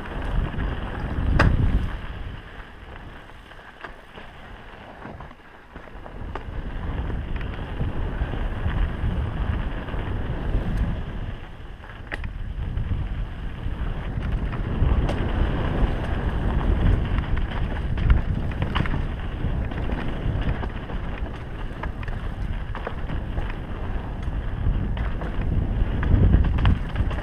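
Mountain bike riding fast down a dirt and rock trail: wind rushing over the microphone and the low rumble of knobby tyres on the ground, with scattered clicks and rattles as the bike hits rocks and roots. It goes quieter for a few seconds about three seconds in, then picks up again at speed.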